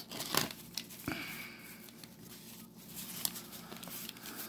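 Baseball cards being handled and flipped through: soft rustling with a few light clicks, the loudest about half a second and a second in.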